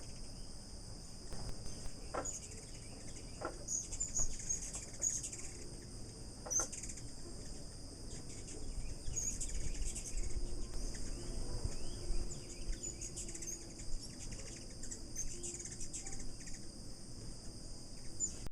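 A steady, high-pitched insect chorus with many short bird chirps scattered through it.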